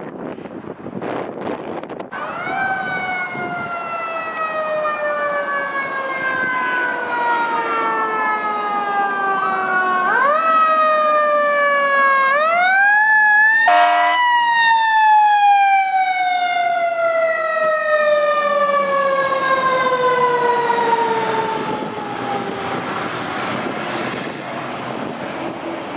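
Fire engine siren wailing: it winds up about two seconds in and falls slowly in pitch, winds up twice more, gives way to a brief horn blast about halfway, then falls slowly again for several seconds before fading.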